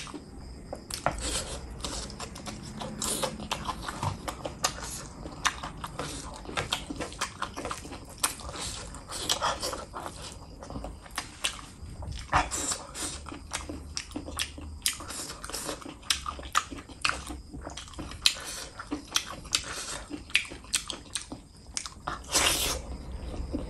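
Close-miked eating of chicken liver and gizzard with rice: a steady run of wet mouth smacks and chewing clicks, with one longer, louder sound near the end as a piece is bitten off.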